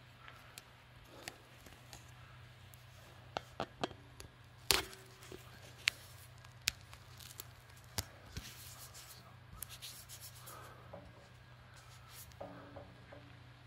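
Handling noise from a phone being set up to film: scattered taps and knocks, the loudest a little under five seconds in, with rubbing and rustling, over a steady low hum.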